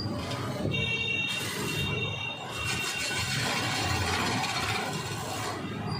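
Wood lathe running while a hand-held turning chisel cuts a long spinning wooden blank, making a steady scraping hiss. A thin high tone rings for about a second and a half near the start.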